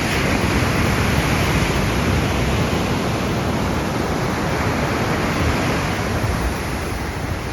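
Surf rolling steadily onto a beach in a continuous wash of noise, with some wind rumbling on the microphone.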